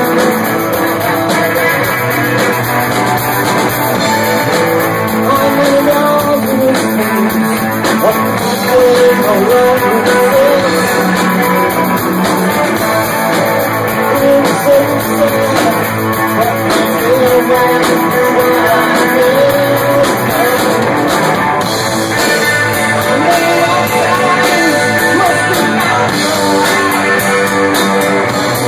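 Rock band playing live: electric guitar and drum kit, with a man singing lead.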